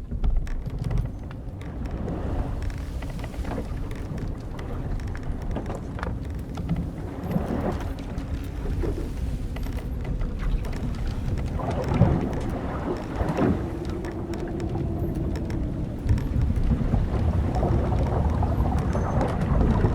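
Steady low rumble of wind and sea around an old wooden sailing ship, with the ship's timbers and ropes creaking several times; the loudest creaks come just past the middle, one of them drawn out for a few seconds.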